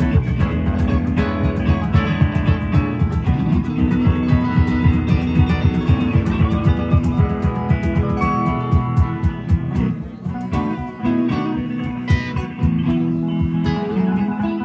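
A live rock band playing: several electric guitars over bass and a drum kit.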